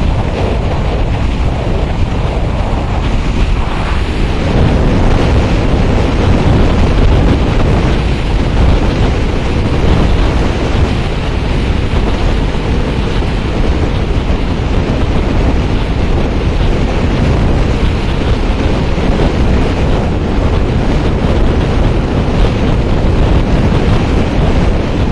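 Wind rushing over a helmet-mounted camera's microphone on a moving motorcycle: loud, steady buffeting noise, heaviest in the low end, that covers any engine sound.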